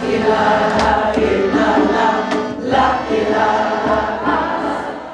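Voices chanting a mantra together in long sustained notes over a steady drone.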